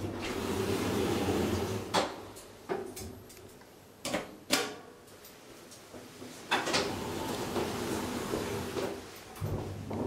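Elevator car doors sliding and clunking shut, with several sharp clicks and knocks. About nine and a half seconds in, a low steady hum starts as the car sets off.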